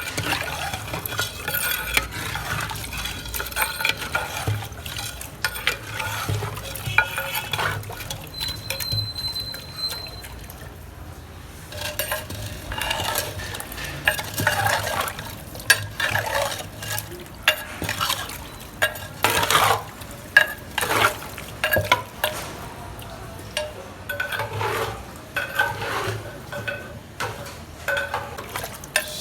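Stirring in a large metal cooking pot: irregular scrapes and clinks of a metal ladle against the pot, over a low steady hum.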